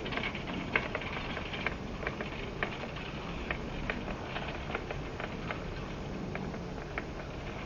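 Outdoor background noise with scattered light clicks and taps at uneven intervals.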